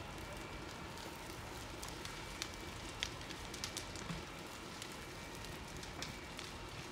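Large building fire burning, a steady noise broken by scattered sharp pops and crackles, several in the middle and one more near the end.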